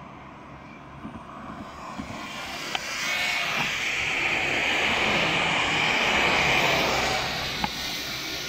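DJI Mavic Mini's propellers whirring, growing louder from about three seconds in as the small drone passes close by, then easing off near the end.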